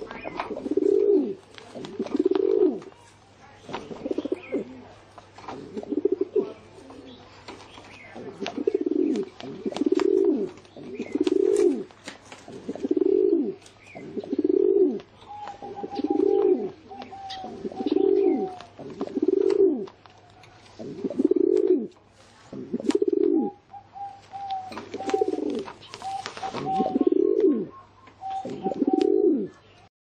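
Rock pigeon cooing over and over, a low rolling coo about every second and a half.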